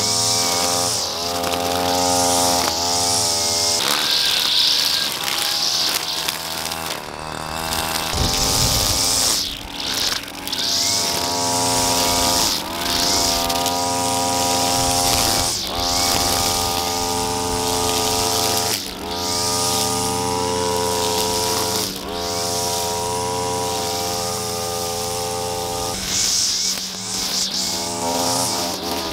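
String trimmer's small engine running at high speed, with the whir of the spinning line cutting grass. The engine note dips briefly every few seconds and climbs back as the throttle is eased off and squeezed again.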